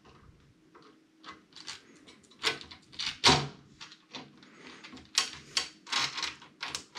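Short clicks and knocks of parts being handled as solid bed-mount spacers are fitted over the bolts under a Creality Ender 5's build plate. They are sparse at first, then come thick and sharper from about halfway through, the loudest knock a little before the middle.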